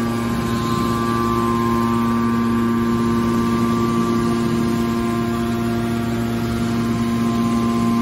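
Hydraulic aluminium baler's power unit running: an electric motor and hydraulic pump giving a steady hum with a whine on top.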